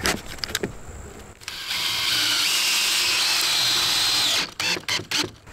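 DeWalt Atomic cordless drill driving a screw into a pine 2x4: the motor runs steadily with a whine for about two and a half seconds, with scattered clicks before it starts and a quick run of clicks after it stops.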